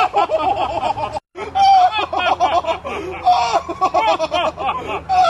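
A man laughing heartily, a long run of loud, repeated 'ha-ha' bursts, broken off briefly about a second in.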